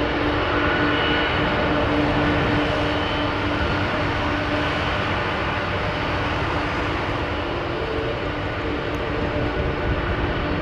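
Jet airliner engines running at taxi power: a steady rumble with a few held tones over it.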